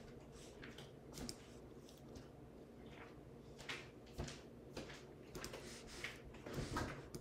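Faint, irregular clicks of keys being typed on a computer keyboard, with a few louder clicks near the end, over a low steady hum.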